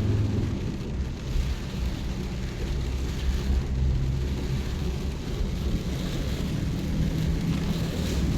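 A vehicle's engine and road noise making a steady low rumble while driving in heavy rain, with an even hiss of rain and wet road throughout.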